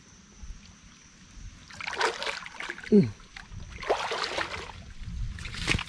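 Rustling and brushing through wet undergrowth, with a brief falling grunt of a voice about three seconds in. Near the end comes one sharp snap as a bamboo shoot is broken off.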